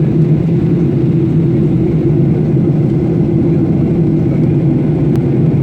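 Steady loud drone of a passenger airliner's engines and airflow heard from inside the cabin, with no change in pitch or level.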